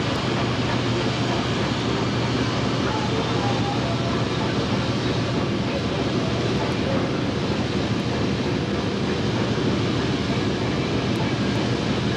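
Sawmill machinery running, a loud steady mechanical din with a constant low hum underneath.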